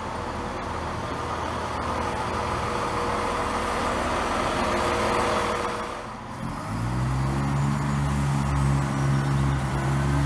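A train: a steady rushing noise with a faint steady whine for about six seconds, then after a brief dip a deep engine note comes in, rising slightly in pitch and then holding steady.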